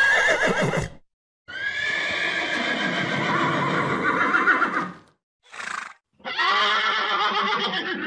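Horses whinnying: four separate calls with short silent gaps. A quavering whinny comes at the start, then a long one lasting about three seconds, a brief one, and another near the end.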